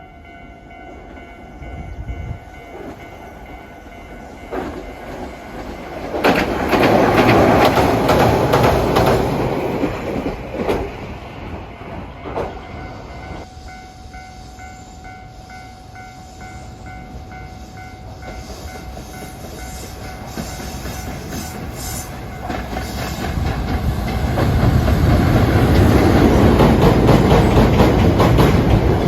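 Train running past on the rails, wheels clattering over the joints with a few sharp knocks; it gets loud about six seconds in, fades, then builds again near the end as another train approaches.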